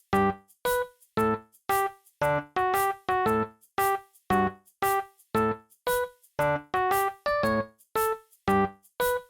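Background music played on a piano-like keyboard: a steady run of short notes, about three a second, each dying away quickly.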